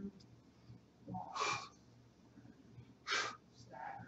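A man's forceful breathing during a bodyweight workout: two sharp breaths out about a second and a half apart, with lighter breaths between.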